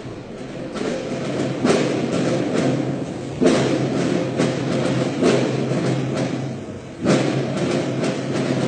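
Instrumental music with deep drum hits that ring on after each strike, over a held low tone.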